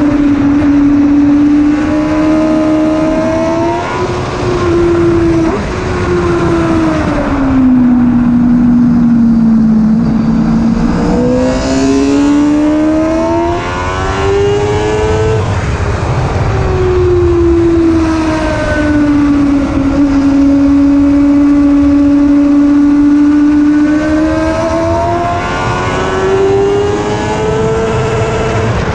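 1000cc inline-four sportbike engine at track pace, revving up through upshifts on the straights and dropping in pitch as it slows for corners. The revs climb, fall and climb again several times, holding steady at lower revs for a few seconds in the middle.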